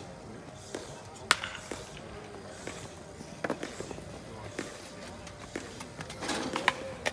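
Sharp cracks of a baseball bat hitting balls in batting practice, several over a few seconds, the loudest about a second in.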